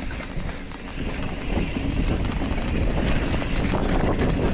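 Wind buffeting a helmet or bike-mounted camera's microphone while riding a hardtail mountain bike down dirt singletrack, mixed with tyre rumble and small clicks and rattles from the bike over the rough trail. The rush grows louder about a second and a half in as speed picks up.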